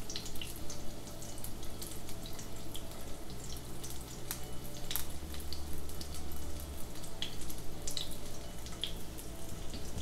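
Chicken seekh kebabs frying in shallow oil in a pan: a steady sizzle with scattered small pops and crackles.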